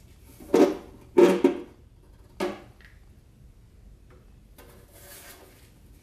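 Stamped-steel oil pan of a small-block Chevy 350 being worked off the block. It gives three short metallic clanks in the first two and a half seconds and a softer scrape about five seconds in. The oil pump pickup tube, fallen loose, is rattling inside the pan, a sign that the tube had come adrift in the sump.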